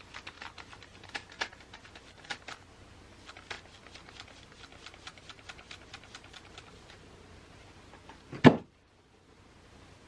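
Irregular light clicks and crackles from hair being worked with a comb and flat iron, then one loud thump about eight and a half seconds in, after which the sound cuts off abruptly.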